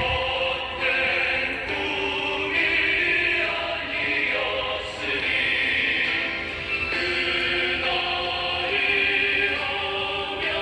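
Background music with voices singing long held notes, changing pitch every second or two.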